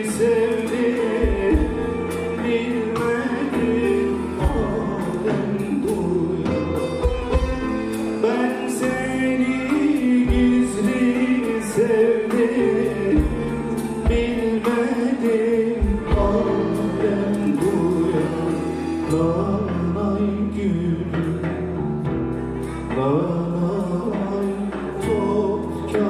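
A Turkish folk song played live: singing over instrumental accompaniment, with low thuds coming in now and then underneath.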